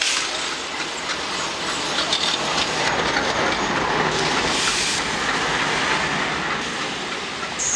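Blue passenger coaches of a diesel-hauled train, behind a WDG-3A locomotive, rolling past close by on the adjacent track, a steady noise of wheels running on rail, as the train arrives at a station.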